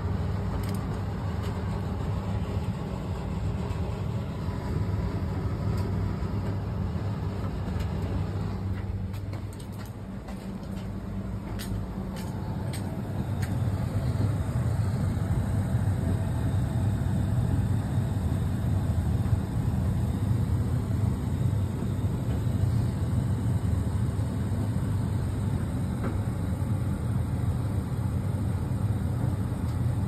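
Fisher & Paykel ED55NZ clothes dryer running: a steady motor hum with the drum turning a load of clothes. The hum dips about nine seconds in and returns louder a few seconds later.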